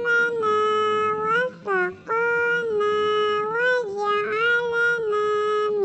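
A high-pitched voice chanting in long held notes, several in a row, each with a small rise in pitch at its end.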